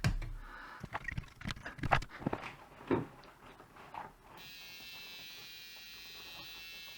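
Handling clicks and knocks, then about four seconds in a switch-mode ZIG X-70 caravan battery charger is powered and gives out a steady high-pitched whine. The noise is unchanged after a replacement TL494CN control chip was fitted, so the fault does not lie in that chip.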